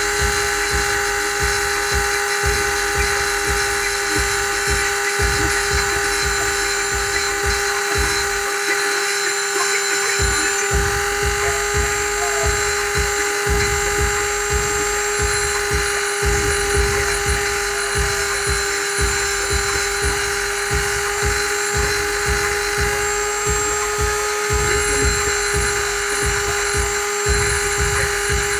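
Corded handheld rotary tool running at a steady speed with a constant-pitch whine while grinding a blade edge to sharpen it.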